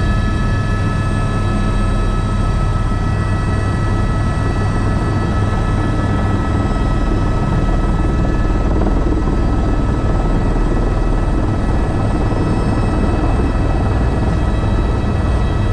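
Airbus H125 single-engine turbine helicopter running steadily: a low, even rotor throb under a constant high turbine whine, with no change in pitch or loudness.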